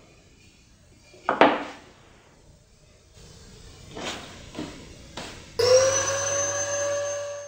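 A sharp wooden knock as the workpiece is set down on the planer table, then a few lighter taps. About two seconds from the end, an electric hand planer mounted in a homemade thickness-planer jig switches on: its motor's whine rises quickly as it spins up, then runs as a steady high whine.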